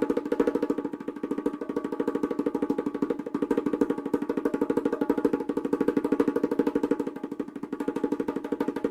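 A fast, continuous drum roll of about ten strokes a second, each stroke carrying the same steady pitched ring, swelling and easing in loudness in slow waves.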